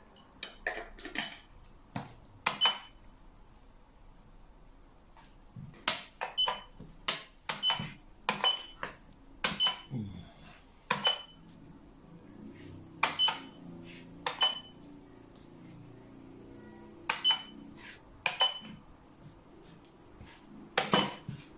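Xiangqi pieces clacking down on the board as moves are played quickly: sharp clacks in clusters of two or three, some with a brief high ring.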